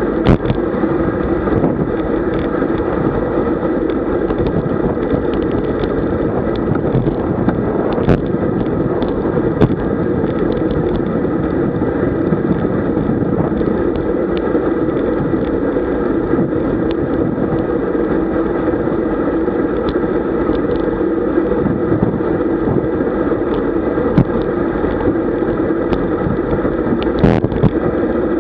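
Wind rushing over an onboard camera microphone with tyre and road noise from a road bicycle riding at around 40 km/h, a steady rushing rumble with a few sharp clicks.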